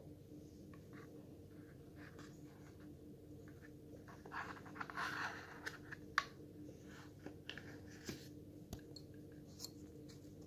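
Hands handling a cardboard watch box and lifting the watch out on its cushion: light rustling, scraping and small clicks, busiest about four to five seconds in, with one sharp click just after six seconds, over a faint steady hum.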